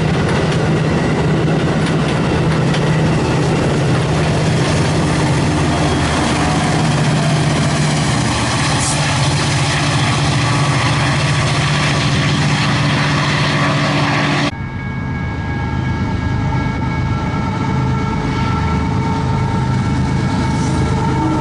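Metra bilevel commuter train running past at close range: steady wheel-on-rail noise with a low locomotive drone. About two-thirds of the way in the sound changes suddenly to the quieter rumble of a Union Pacific freight train led by a GE ES44AC locomotive approaching, with a few steady higher tones over it.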